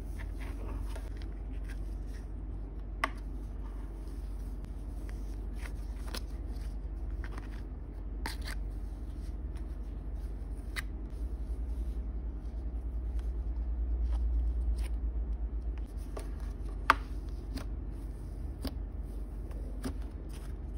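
Hands squishing and stretching a snow-based icy slime, giving soft sizzly crackles and scattered small clicks, two of them sharper, over a steady low hum.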